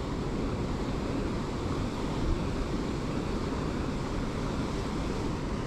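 Steady rush of a waterfall and river water pouring into a pool.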